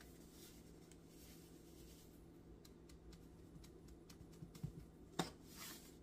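Near silence with faint scattered clicks of a tiny metal measuring spoon against a spout-top salt canister as a dash of salt is poured. A sharper click and a brief rustle come about five seconds in.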